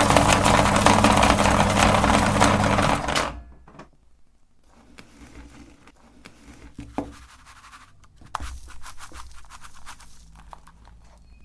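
Electric meat grinder running with a steady motor hum, cutting off abruptly about three seconds in. Quieter crackling and rustling follow, with scattered clicks.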